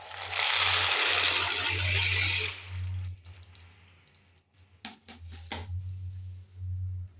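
Running water for about two and a half seconds, stopping abruptly, then three short knocks about five seconds in.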